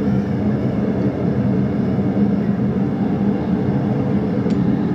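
Forge running: a steady low hum under an even rushing noise, with one faint tick near the end.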